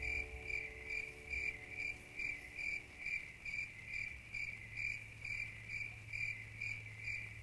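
A car's electronic warning chime: a high, even beep repeating about twice a second, with a low steady hum beneath it.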